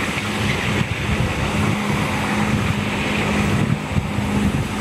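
Steady road-traffic noise from a nearby road, with a low steady hum under it and wind on the microphone.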